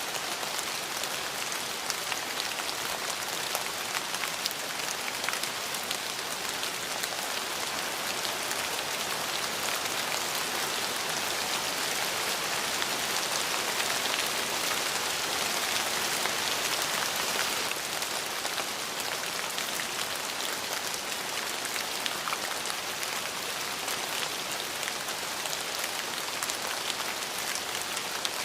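Steady rain falling on a surface, with individual drops ticking through it. It grows a little louder about a third of the way in, then eases back suddenly a little past halfway.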